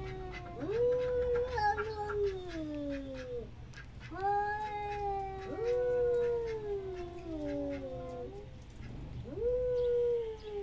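Two domestic tabby cats yowling at each other in a face-off: long, drawn-out wavering calls, often overlapping, each sliding down in pitch at the end. This is the threatening caterwaul of a territorial standoff between cats.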